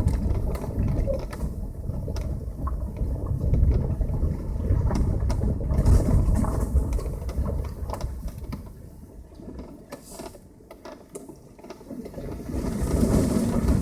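Passenger car driving, heard as a low rumble from the tyres and running gear with scattered knocks and rattles. The rumble eases about eight seconds in and swells again near the end.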